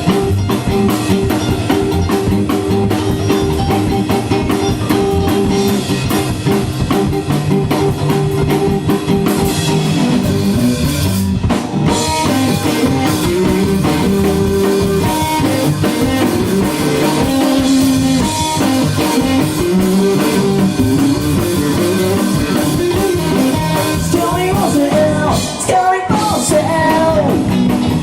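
A rock band playing live: drum kit and electric guitar, with melodic lines that may include voice. The band drops out briefly about a third of the way in and again near the end.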